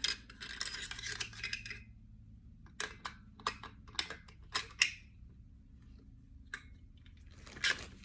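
AR-15 bolt and bolt carrier being worked and slid into place: a short metal scrape, then a scattered run of sharp metal clicks and clinks.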